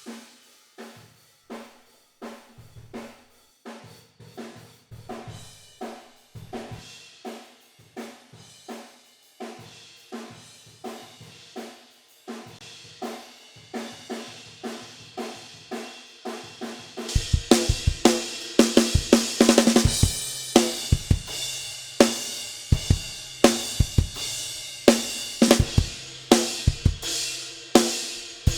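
Recorded drum kit played back through a room microphone placed in a bathroom, a steady beat of snare, hi-hat and kick hits with little low end. About 17 seconds in it becomes much louder and fuller, with deep bass drum hits and heavy cymbals.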